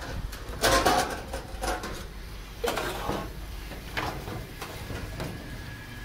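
A whole roast lamb being pulled apart by hand on a steel tray: a series of short scrapes and knocks, roughly one a second, the loudest about a second in.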